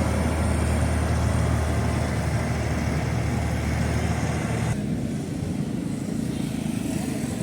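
Motor vehicle engines running in street traffic, a steady low hum with a wash of road noise over it; about two-thirds of the way through the higher noise drops away suddenly, leaving a quieter engine hum.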